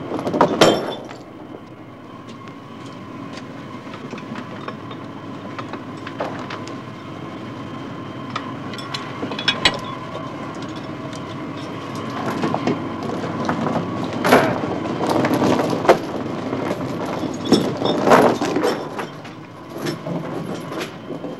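Deck machinery of a small stern dragger shooting its trawl: a steady mechanical running noise with loud metallic clanks and rattles of chain and the wooden trawl door against the gallows. One heavy clank comes right at the start and more come in the second half.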